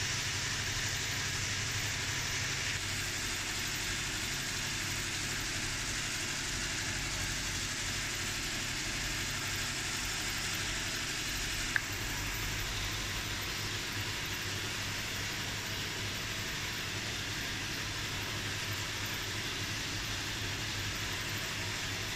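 Steady background hum and hiss, even throughout, with a low droning hum under it and one sharp click about twelve seconds in.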